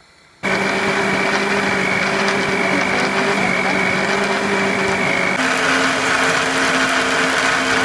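Countertop electric blender switched on about half a second in, running steadily as it purées cooked carrots and grapefruit into juice. About five seconds in, its motor note changes.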